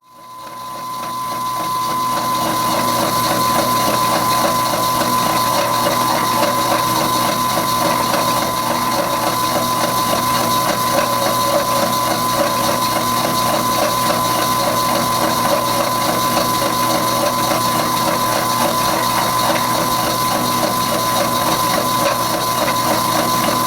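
Slitting saw on a milling machine cutting through half-inch steel: a steady, fast mechanical chatter of the saw teeth with a constant high tone, fading in over the first couple of seconds.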